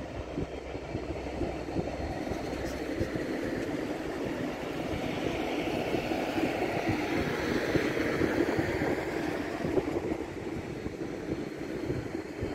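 Freight train running along the track: a steady rumble of wheels on rails with a hiss above it, growing louder toward the middle and easing a little near the end.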